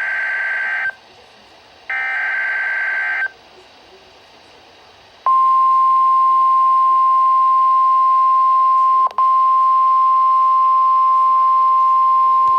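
NOAA Weather Radio Emergency Alert System signal. Two harsh digital SAME header bursts, each about a second and a half long, then after a short pause the steady 1050 Hz warning alarm tone starts about five seconds in and holds, with a momentary dropout around nine seconds.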